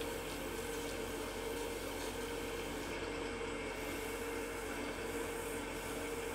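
Wood lathe running at a steady speed, a steady hum, with an even hiss from 220-grit sandpaper held against the spinning wooden bell.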